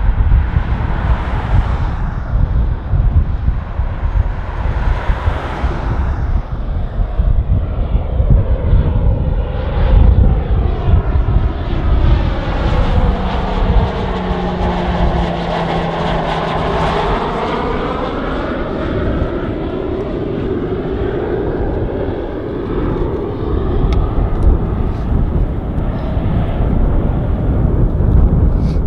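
Pilatus PC-21 trainer's single PT6A turboprop engine and propeller droning as the aircraft flies past with its gear down. The sound swells as the aircraft passes close overhead around the middle, with a sweeping, phasing whoosh and a short steady hum.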